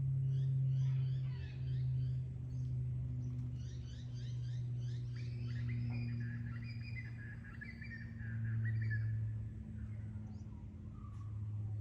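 Wild birds calling: rapid runs of short, high chirps that slide downward, with a warbling song in the middle, over a steady low hum that is the loudest sound.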